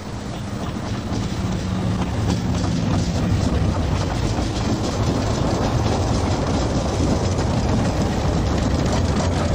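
Narrow-gauge steam train running close past: the locomotive and coaches rumble by with a run of sharp clicks from the wheels. It grows louder over the first couple of seconds and cuts off suddenly near the end.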